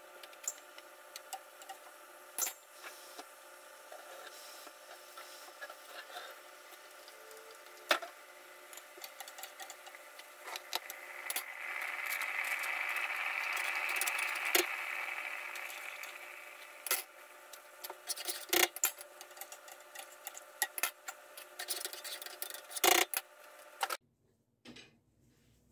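Kitchen work sounds: scattered knocks and clatter of utensils and cookware over a steady hum, with a hissing swell lasting a few seconds in the middle. The sound drops away abruptly near the end.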